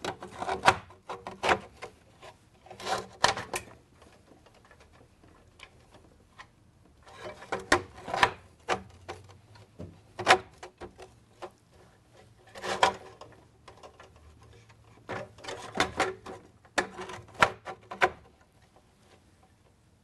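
Handling sounds of a copper water distribution unit being bent by hand and set back against a stone fountain face: clusters of rubbing, scraping and clicking knocks every couple of seconds, with short quiet gaps between. The lip is being reshaped to close the gap against the stone.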